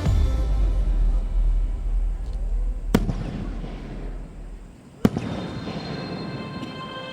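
Fireworks going off: a long, deep rumble of booms that dies away, with two sharp single bangs about three and five seconds in.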